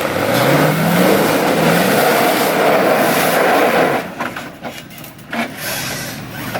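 Off-road truck's engine revving hard under throttle, its pitch climbing twice, over a loud rushing noise. The revving and the rushing noise drop away suddenly about four seconds in, leaving a few knocks.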